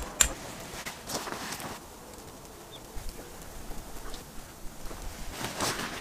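Footsteps crunching on gravel: a few steps at the start, a quieter pause, then more steps near the end.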